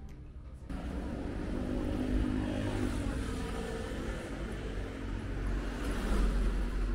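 Street traffic noise: the rumble of passing cars, starting about a second in and swelling twice.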